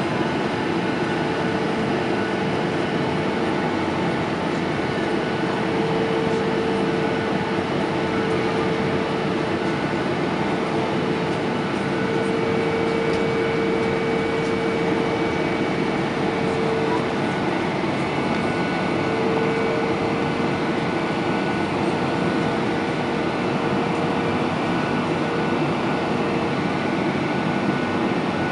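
Steady in-flight cabin noise of a Boeing 737-800 heard from a window seat: the rush of air past the fuselage blended with the hum of its CFM56-7B turbofan engines. A mid-pitched drone within it swells and fades slightly over several seconds.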